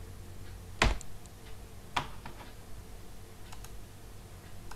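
A few sharp clicks of computer keys and mouse buttons at a desk. The loudest comes about a second in and another about two seconds in, with fainter ticks between and after, over a faint low hum.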